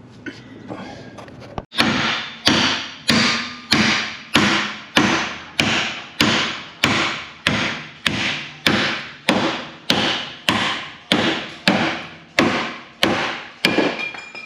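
A hammer striking at a steady, even pace, about twenty blows a little under two per second, each with a short ringing fade.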